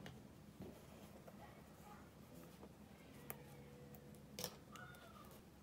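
Near silence: faint rustling and a few light clicks of a crochet hook and yarn being handled, over a low steady room hum.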